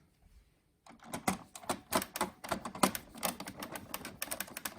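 Screw being driven back into the plastic roller cover of an Epson printer's document feeder with a screwdriver. It makes a rapid, irregular run of small clicks starting about a second in, quickening near the end.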